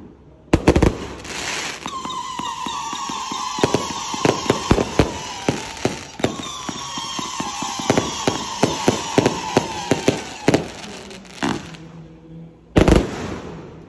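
Multi-shot fireworks cake firing: a sharp launch bang just after the start, then a long whistle that slowly falls in pitch, broken briefly midway, over a rapid run of crackling pops. More bangs follow near the end, the loudest about a second before the end.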